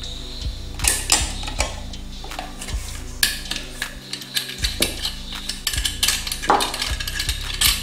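Irregular metal clicks and clinks of pliers and fingers on the chrome body of an old Red Heart electric iron as the nut on the handle stud is worked loose, with background music underneath.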